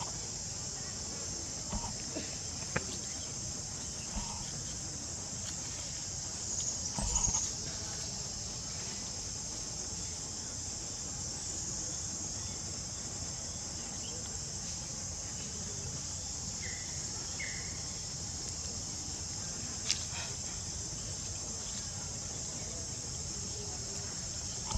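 Steady, high-pitched insect drone, with a few faint clicks and short chirps over it.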